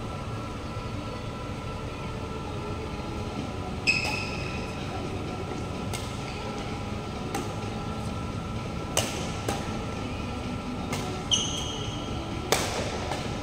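Badminton rally: rackets striking the shuttlecock in a series of sharp cracks, one every second or two, with two short shoe squeaks on the court floor, over a steady background hum.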